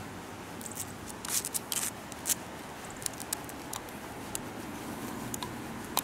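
Crackling rustle of a shiba inu's fur brushing close against the microphone, in a cluster of sharp crackles about a second in, then scattered clicks.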